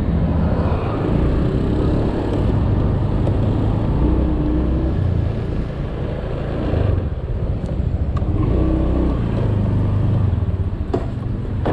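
Motorbike engine running and road noise while riding through traffic, the engine note rising and falling as the speed changes.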